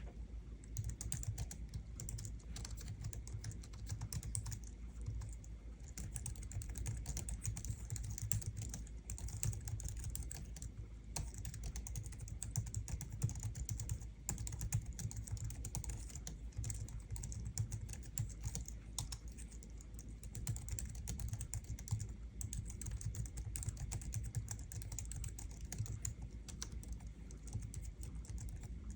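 Continuous typing on a Logitech MX Keys low-profile scissor-switch keyboard: a rapid run of soft key clicks, with a few brief pauses between bursts.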